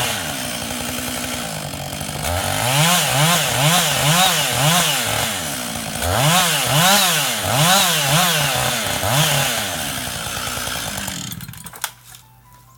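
Husqvarna 560XPG two-stroke chainsaw running, its engine pitch rising and falling over and over. The saw winds down and stops near the end, followed by a single knock.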